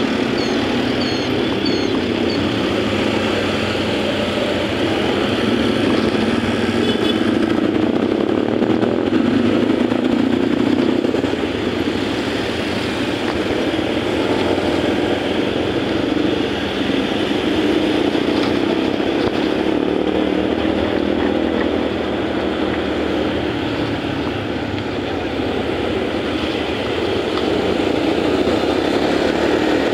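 Motor scooter ridden through city traffic, heard from the rider's seat: a steady mix of its own engine and the road and traffic noise around it, swelling and easing a little as the ride goes on.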